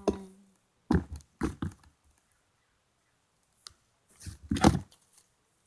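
Homemade slime being squished and stretched by hand: a few short sudden squishing noises, twice about a second in and again in a cluster around four seconds in.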